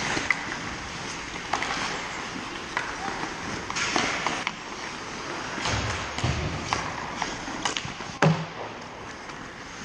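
Ice hockey play on an indoor rink: skates scraping the ice, with scattered clacks of sticks and puck, and a louder knock with a low thud about eight seconds in.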